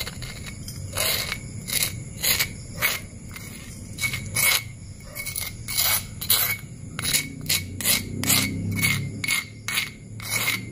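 Metal spoon scraping dry ground crumbs off a stone mortar (cobek) in quick, irregular strokes. Each stroke carries a light metallic ring from the spoon.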